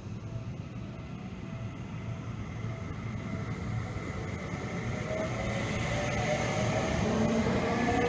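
Seibu 30000 series electric train passing close by and accelerating, its inverter-driven traction motors whining steadily upward in pitch while the train noise grows louder. A level-crossing bell pulses faintly about twice a second in the first few seconds.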